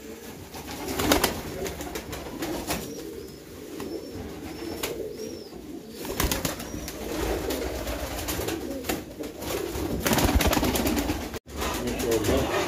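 Uzbek double-crested pigeons cooing in a wire cage, with a rustle of wing flapping and scattered clicks from the cage.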